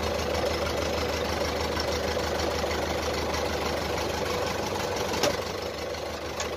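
Old tractor engine idling steadily just after being started, with a single short click about five seconds in.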